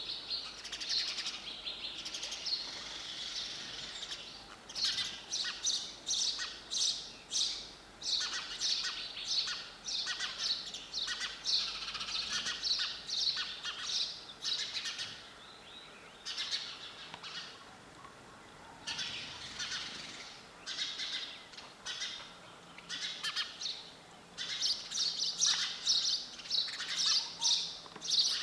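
Sparrows chirping in rapid runs of short, high notes, with a couple of brief lulls about two-thirds of the way through.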